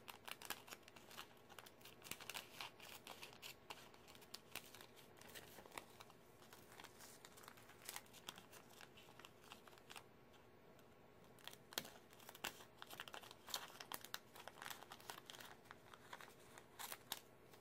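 Cellophane bag crinkling faintly as it is handled and cut with small scissors: scattered crackles and snips, with a short lull about ten seconds in.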